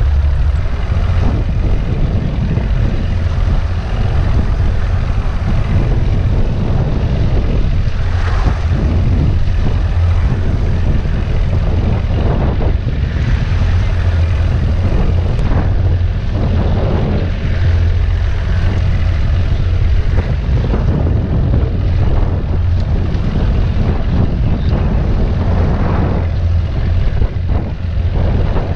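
Small fishing boat under way on choppy water: a steady low engine hum under wind buffeting the microphone, with water splashing against the hull now and then.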